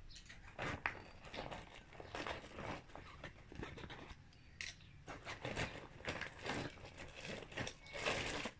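Faint rustling and crinkling of packaging, with many small irregular crackles and taps, as someone rummages to fetch a handful of pens.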